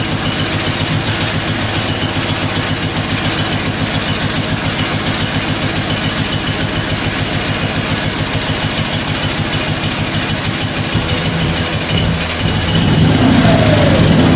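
1968 BMW R50's air-cooled flat-twin engine idling with an even beat. About two-thirds of the way through, the note changes and then grows louder near the end.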